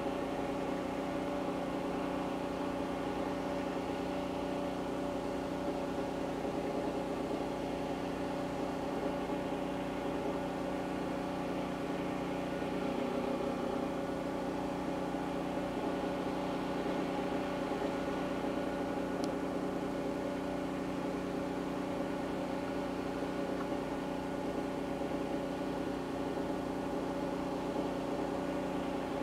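Portable engine-driven generator running steadily at a constant speed, powering the electrofishing gear.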